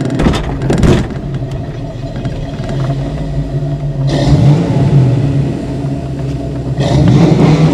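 1990 Ford Mustang LX engine and exhaust running, swelling louder as it revs up about four seconds in and again near the end.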